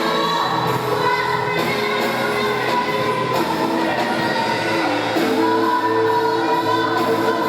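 Congregation and worship band singing a gospel hymn together, with long held notes over steady instrumental accompaniment.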